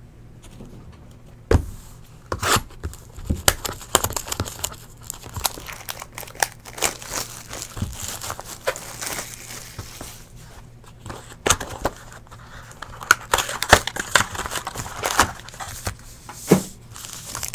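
A cardboard box of trading cards being handled and its stack of foil card packs pulled out: irregular crinkling and rustling with many sharp taps and clicks, busiest near the end.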